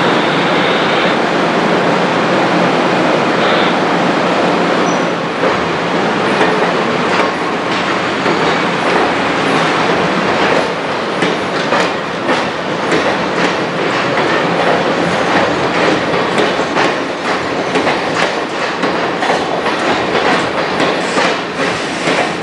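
Amtrak passenger cars rolling along the platform track, their wheels clicking over the rail joints under a steady rumble. The clicks come more often from about halfway through as the train moves faster.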